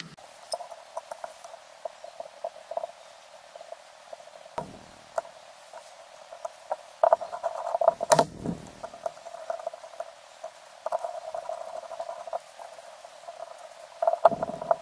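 Small metal fly-reel parts clicking and scraping as they are handled and a screwdriver turns a small screw, in uneven clusters of light clicks, with one sharp knock about eight seconds in.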